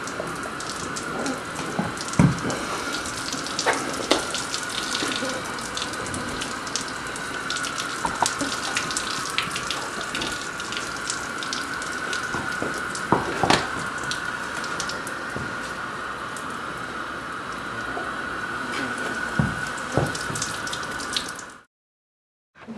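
Water running steadily from a hose, a continuous hiss with splashing and scattered clicks and knocks; it cuts off abruptly near the end.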